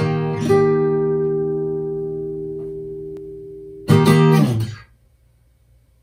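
Cort acoustic guitar: a closing chord strummed and left to ring, fading slowly. One more strum about four seconds in dies away within a second.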